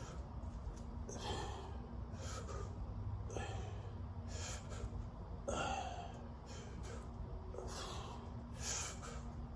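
A person breathing hard in a steady rhythm, a short forceful breath about once a second, with the effort of repeated sit-ups.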